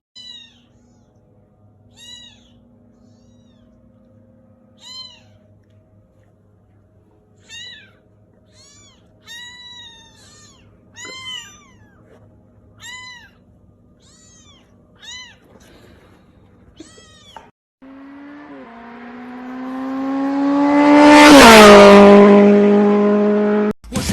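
A cat meowing over and over in short, high, arching meows, about a dozen of them, a second or so apart. Then a loud droning sound swells, drops in pitch as it peaks, and cuts off suddenly.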